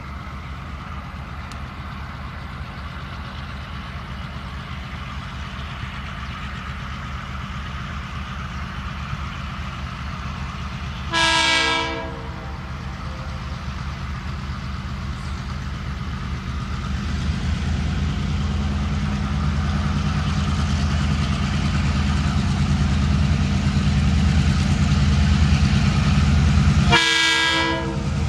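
TasRail DQ-class diesel locomotives hauling a container train, their engines running with a low drone that grows louder as they approach. The locomotive horn sounds two short blasts, one a little before halfway and one near the end.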